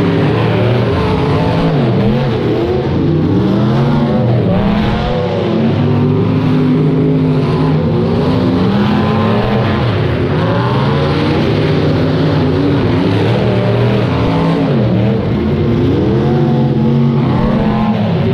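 Engines of several rear-wheel-drive demolition derby cars running and revving together. Their pitch repeatedly rises and falls as the cars accelerate and back off across the dirt arena.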